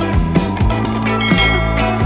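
Background music: a rock-style track with guitar and a steady drum beat.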